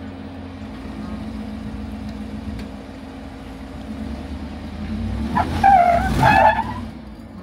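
Jeep engine running at low speed while crawling over rock, its throttle building about four seconds in. About five and a half seconds in, a loud wavering high-pitched sound lasts for about a second and is the loudest part.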